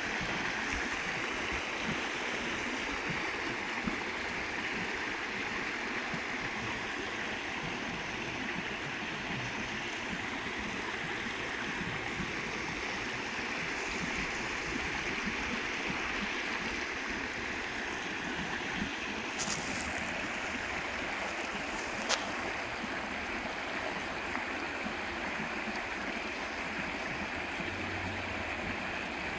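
A small rocky stream babbling steadily as shallow water runs over stones and small riffles. A couple of faint short ticks sound about two-thirds of the way through.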